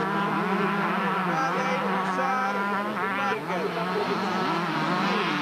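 Several motocross bikes' two-stroke engines buzzing and revving together, their pitches rising and falling as the riders work the throttle.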